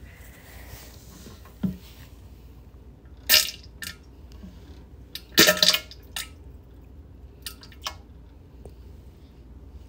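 Feces plopping into toilet bowl water: a few short splashes, the loudest about three seconds in and a quick cluster of them around five and a half seconds, over a steady low hum.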